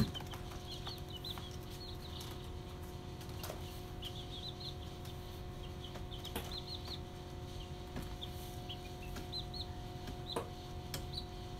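A group of young chicks peeping: many short, high cheeps, often in quick runs of two or three, with a few soft taps. A faint steady hum runs underneath.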